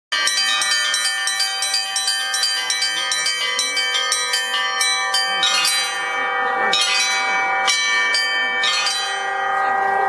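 Set of small Orthodox church bells on a portable wooden belfry being rung from ropes: a quick pattern of high bells struck about five times a second over the ringing of the bigger bells, slowing to about one stroke a second after the halfway point, the bells ringing on between strokes.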